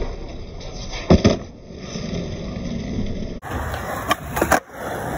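Skateboard tricks on smooth pavement: a sharp crack of the board popping at the start, two loud clacks of the board landing about a second in, then the low rumble of the wheels rolling. More sharp board cracks come near the end.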